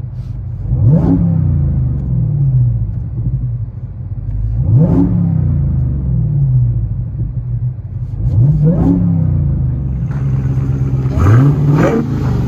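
Dodge Charger Hellcat's supercharged 6.2-litre Hemi V8 revved four times from idle, about every four seconds. Each rev rises sharply and falls back slowly to idle. It runs through an exhaust with the rear mufflers cut off and the factory mid mufflers and X-pipe kept.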